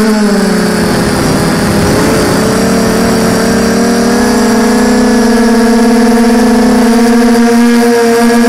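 An FPV quadcopter's brushless motors and propellers whine, heard from the drone's own onboard camera. The pitch dips and wavers about a second in, then holds steady as it cruises low.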